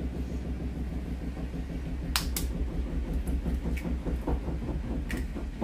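Washing machine on its spin cycle, a low pulsing rumble throughout. Several sharp taps come over it, twice about two seconds in and again near four and five seconds, as eggs are cracked against the pan.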